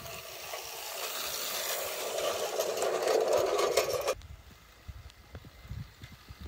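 Ace Trains O gauge Pannier Tank model locomotive and its coaches running past on garden-railway track: a steady rolling noise with fine clicks that grows louder, then cuts off abruptly about four seconds in. After that only faint light clicks and low thumps remain.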